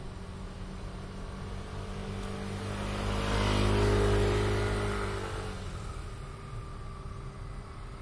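A motor vehicle passing by: its engine and tyre noise swell to a peak about four seconds in, then fade away, over a steady low engine hum.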